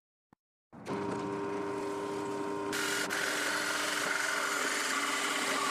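Drill press motor starting and running with a steady hum, then its large cylindrical cutter biting into a wooden board about two seconds later and cutting steadily, adding a loud high grinding noise.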